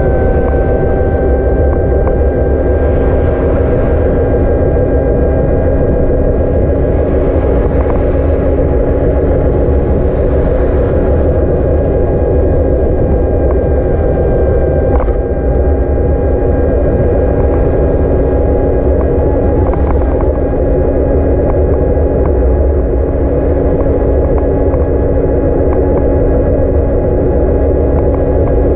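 Electric bike motor whining steadily while riding, its pitch drifting slowly upward, over heavy wind rumble on the microphone.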